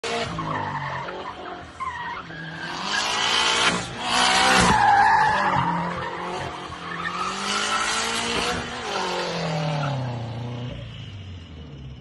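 Subaru BRZ drifting in circles: the flat-four engine revs hard while the rear tyres squeal and skid, loudest about four to five seconds in. Near the end the revs fall away and the tyre noise fades.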